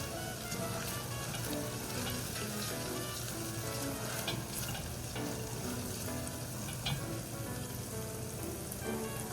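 Food frying in a pan: a steady sizzle with a few light clicks, under soft background music.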